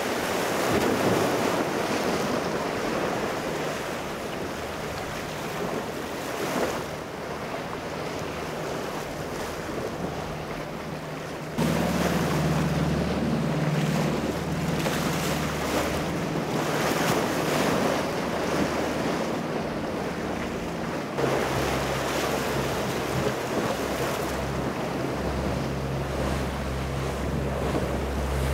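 Surf and wind buffeting the microphone, with boat engines droning steadily underneath. The engine drone grows louder with a sudden jump a little before halfway, and the sound changes abruptly again about two-thirds of the way in.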